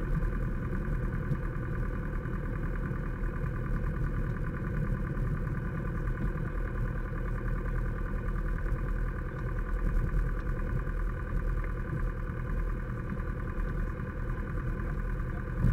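Grumman AA-5A Cheetah's four-cylinder Lycoming O-320 engine idling steadily, propeller turning slowly as the plane rolls out and taxis after landing, heard from inside the cockpit.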